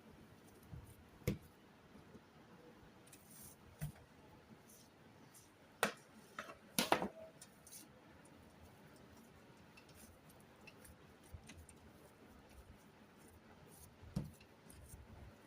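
Scattered light clicks and knocks of kitchen handling in a small, quiet room. The loudest come as a short cluster about halfway through, with a single knock near the end.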